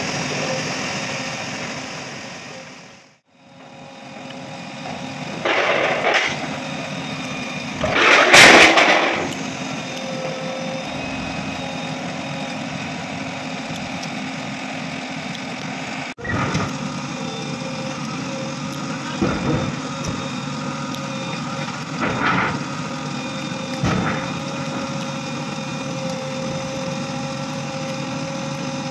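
JCB backhoe loader's diesel engine running steadily while the backhoe arm works, lifting steel sheets off a truck. Several louder knocks and clatters cut through the engine noise, the loudest about eight seconds in, and the sound drops away briefly about three seconds in.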